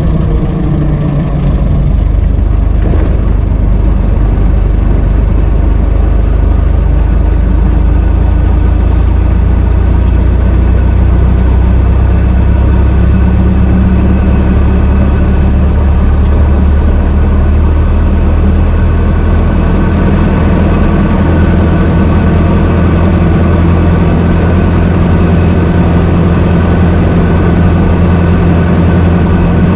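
Old car engine running steadily at low revs, with a deep, even tone.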